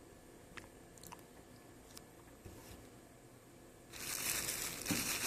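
A few faint clicks, then about four seconds in a steady crackling, crunching rustle sets in, like something being handled or crumpled close to the microphone.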